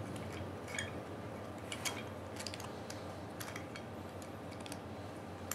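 Scattered light clicks and taps of small metal valve parts being handled and fitted together on a desk: a thermostatic radiator valve's controller and body. Under it is a steady low room hum.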